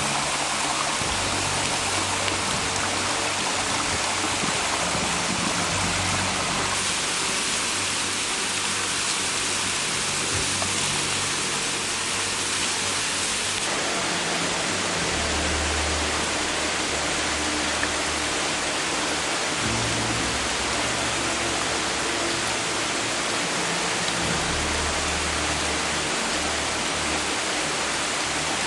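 Waterfall with a steady rush of falling water splashing on rock, with soft background music of held low notes underneath. The rush changes abruptly about 7 and 14 seconds in.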